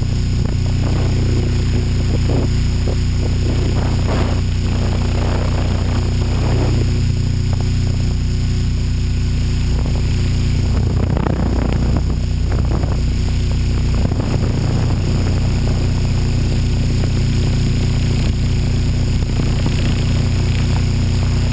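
HK600GT radio-controlled helicopter's rotor and motor running steadily in flight, heard from the camera mounted on the helicopter, with irregular gusts of wind noise.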